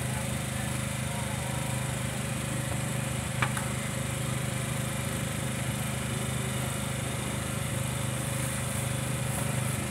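A small engine running steadily with an even drone, and a single sharp click about three and a half seconds in.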